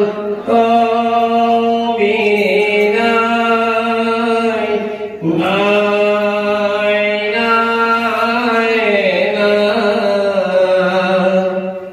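A man's voice chanting scripture verses in a slow, drawn-out melody, the style of Assamese Bhagavat path recitation. Each phrase is held on long steady notes, with a short breath pause about five seconds in.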